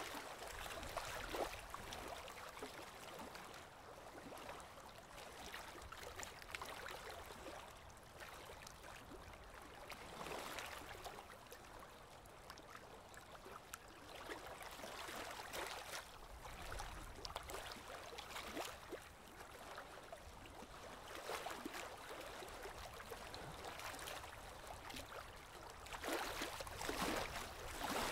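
Goldfish tank water gurgling and bubbling, with irregular louder splashy crackles, strongest about a second in and again near the end, as the goldfish crowd at the surface.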